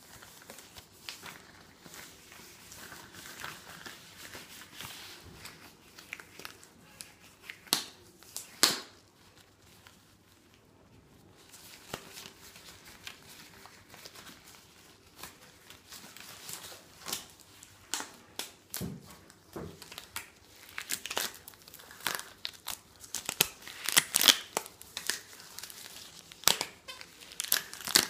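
Latex exam gloves, one white and one green, being pulled on and worked over the hands: crinkling and rubbing of the latex with sharp snaps and slaps. The loudest snaps come about eight seconds in and again through the last several seconds.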